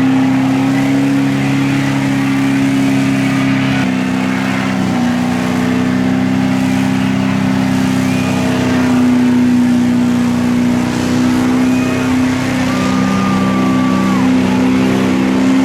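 A vehicle engine running steadily, its pitch stepping slightly about four seconds in, with a few brief high squeaks later.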